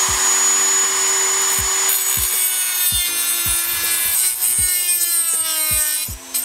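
Dremel rotary tool with a cut-off wheel, its motor whining at full speed, then dropping in pitch from about three seconds in as the wheel is loaded cutting into the ECU's metal housing.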